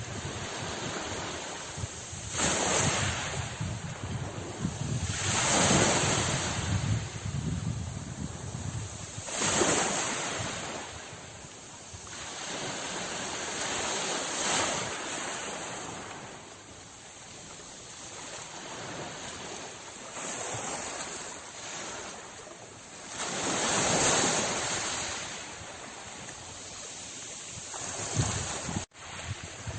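Sea waves washing onto a shore, a steady surf that swells and fades every few seconds, loudest surges about 2, 6, 10 and 24 seconds in. The sound cuts out for an instant near the end.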